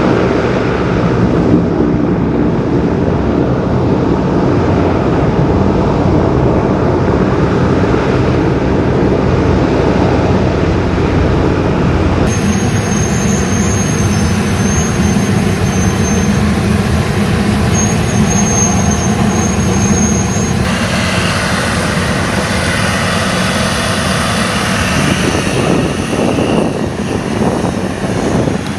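Loud, steady engine and rotor noise of military helicopters and tiltrotors, with an abrupt change in character about twelve seconds in, when a high whine joins, and again about twenty-one seconds in.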